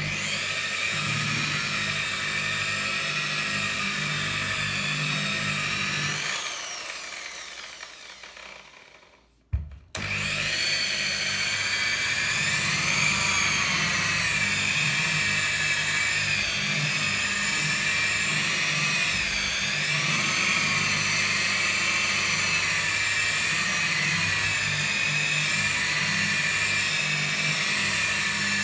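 Rotary car polisher with a foam pad running on clear coat: its electric motor whines steadily, winds down and stops about six to nine seconds in, then is switched on again about ten seconds in and runs on, its pitch wavering slightly.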